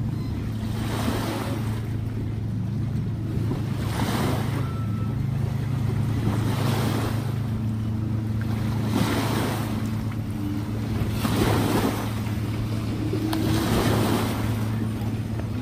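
Small waves on a wind-chopped lake washing and breaking against a grassy shore, one swell every two to three seconds, over a steady low hum.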